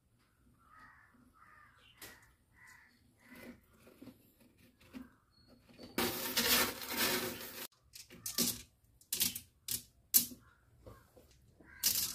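Plastic aquarium ornament pressed down into wet glass-pebble gravel: a grinding crunch of pebbles lasting about a second and a half, about halfway through, then several sharp clicks as pebbles knock against each other and against the ornament.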